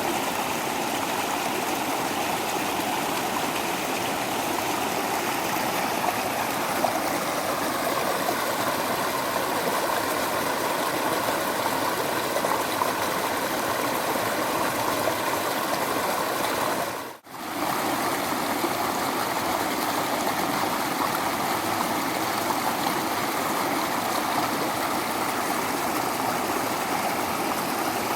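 Small waterfall rushing steadily, an even splashing flow of water. The sound drops out for a split second about two-thirds of the way through, then resumes.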